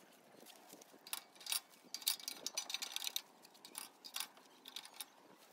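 Split wooden kindling sticks dropped one after another into the steel feed tube of a wood-burning camp stove, a run of irregular hollow knocks and clatters of wood on sheet metal.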